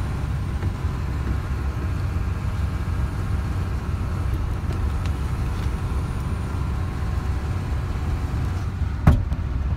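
Fire truck's engine and road noise heard from inside the cab while driving, a steady low rumble. A single sharp knock near the end.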